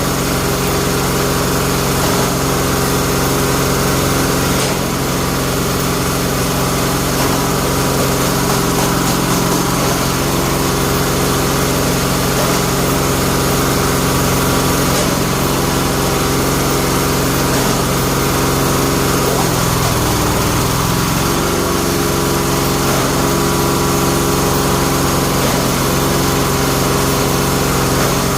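Bamboo-splitting machine's engine running steadily, its pitch dipping briefly about twenty seconds in and then recovering.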